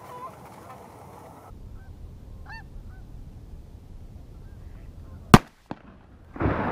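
Canada geese honking a few times overhead, then a single sharp shotgun blast about five seconds in, followed by a rush of noise near the end.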